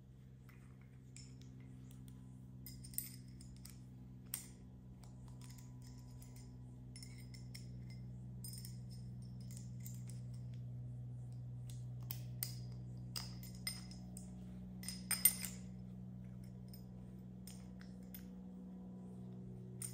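Small metal parts and tools clinking and tapping as they are handled: a few single clinks early on, then a quick cluster about three-quarters of the way through. Under them runs a steady low electrical hum that slowly grows louder.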